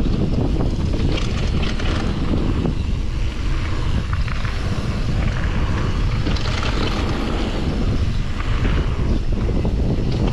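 Wind buffeting the microphone over the steady rumble of mountain bike tyres rolling fast on a dirt trail, with scattered short clicks and crunches from gravel and the bike.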